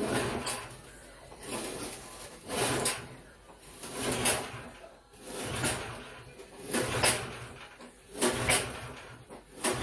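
Recoil starter of a Remington snowblower's 179cc PowerMore engine pulled about seven times, one pull every second and a half or so, with the choke on after priming. The engine turns over without catching.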